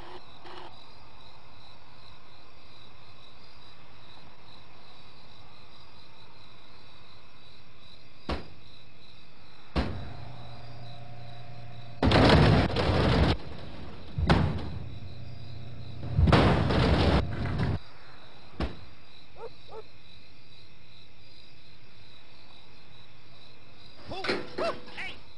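A vending machine with a steady high drone under it and a few sharp clicks. Twice it gives a loud mechanical whirr with rattling, each lasting about a second and a half, typical of the machine's dispensing motor turning.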